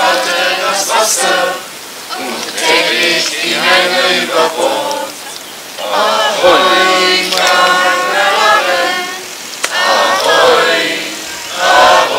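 A group of young voices singing together from songbooks, in sung lines with short breaks between phrases.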